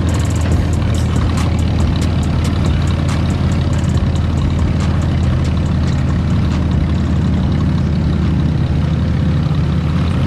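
Off-road buggy engine running steadily with a deep, even hum, with some sharp clicking or rattling in the first few seconds.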